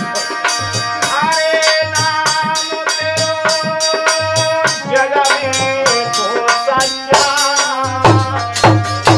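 Folk bhajan on harmonium and dholak. A man's voice holds long, wavering sung notes over the harmonium's steady reed chords, while the dholak beats an even rhythm with a bright rattling click on each stroke.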